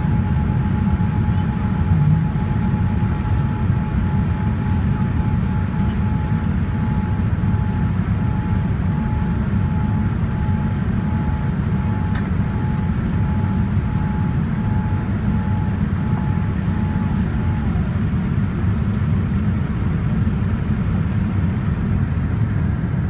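Steady low rumble of a Boeing 787-9's engines and airflow, heard inside the passenger cabin in flight. A thin steady whine over it starts to pulse on and off about a quarter of the way through and stops, dipping slightly, about three-quarters of the way in.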